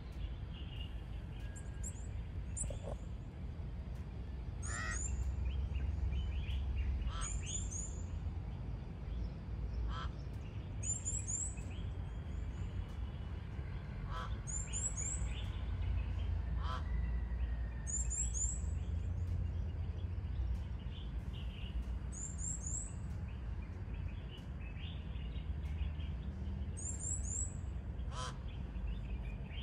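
Outdoor birdsong: one bird repeats a very high-pitched call of a few quick notes about every three to four seconds, with fainter chirps from other birds over a steady low rumble.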